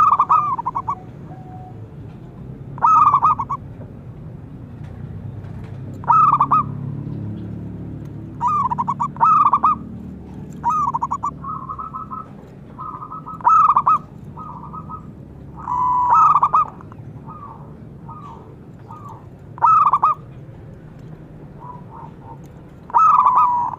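Zebra dove (perkutut) cooing: a series of short, staccato call phrases every few seconds, with quicker runs of stuttering notes in between.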